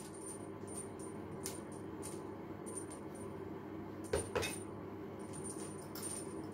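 Small metallic clinks from a chrome basin mixer tap and its flexible hot and cold connector hoses being handled as the hoses are screwed into the tap by hand, with two sharp clicks close together about four seconds in.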